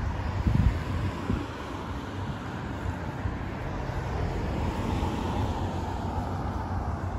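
Wind buffeting the microphone outdoors, with gusty low thumps in the first second or so over a steady rumble of background noise.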